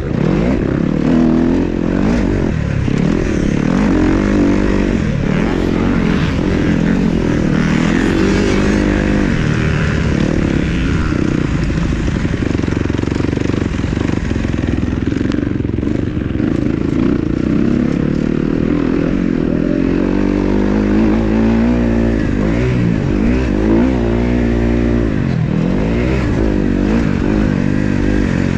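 Several motocross dirt bikes racing on the track, their engines revving up and down and overlapping as they go round.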